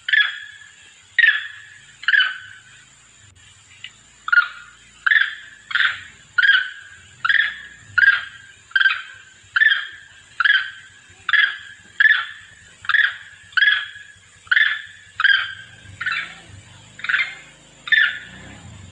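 Long-tailed macaque giving a long series of short, sharp calls, about twenty in all. A few spaced calls come first, then a steady run of roughly one call every 0.8 s, each cutting in abruptly and fading quickly. It is a monkey's call to its companions, played as a lure.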